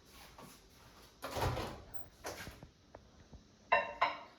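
Microwave oven being loaded: a door thump, a few light clicks as the cup goes in, then two short beeps near the end from the keypad.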